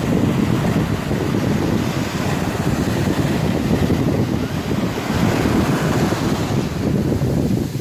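Wind buffeting the microphone as a low, steady rumble over the wash of sea waves.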